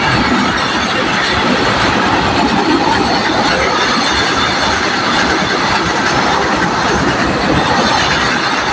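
Freight train wagons rolling over a river bridge, a steady loud rumble and rattle of wheels on the rails.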